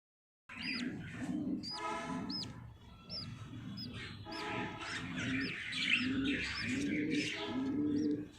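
Pet birds calling: a run of short high chirps over repeated low cooing notes, starting suddenly about half a second in.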